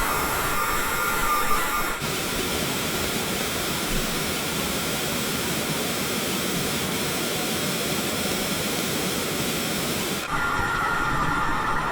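Factory assembly-line ambience: steady machine noise. About two seconds in, a continuous loud hiss takes over. Near the end the hiss cuts off and the whining machine tones return.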